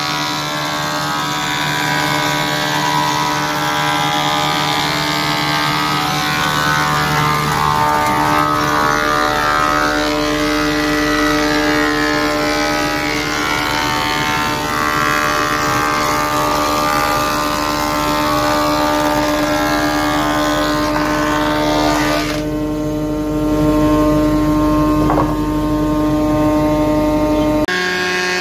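Thickness planer running with a steady motor whine while rough-sawn boards feed through the cutterhead, which adds a loud hiss of cutting over it. About 22 seconds in the cutting hiss drops away and leaves the running motor, and the pitch shifts again near the end.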